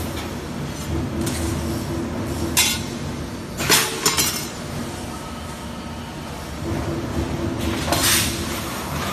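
Metal parts clinking and clanking as they are handled at the welding jigs of a robot welding cell, over a steady machinery hum. The loudest clank comes about four seconds in and rings briefly, with smaller clinks before it and near the end.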